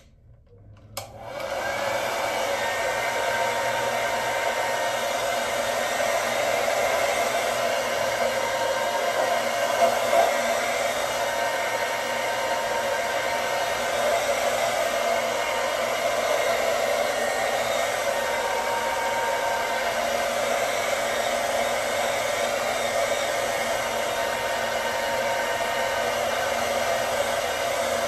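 Handheld hair dryer switched on about a second in, then running steadily with an even blowing whoosh, aimed at a wig cap on the head.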